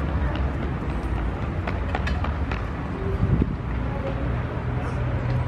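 Outdoor city ambience: a steady low rumble of distant road traffic, with a few faint short clicks.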